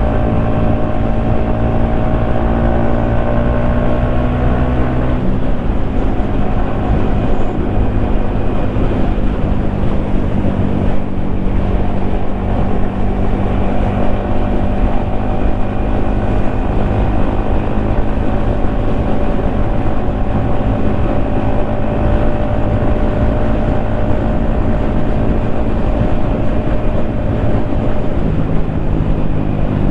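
Yamaha XSR155's single-cylinder 155 cc engine running while the bike rides along, heard from the rider's helmet with wind noise. The engine note shifts about five seconds in, then holds steady, with another small change near the end.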